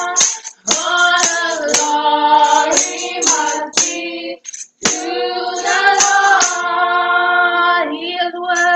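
A small group led by women's voices sings a gospel worship song, with hand claps about twice a second. The singing breaks off briefly about half a second in and again around four and a half seconds.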